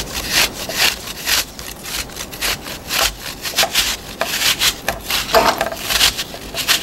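An apple rubbed back and forth over a flat metal hand grater, a rapid series of rasping strokes about three a second.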